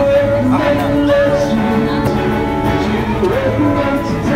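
A song playing, with a sung melody over steady held notes.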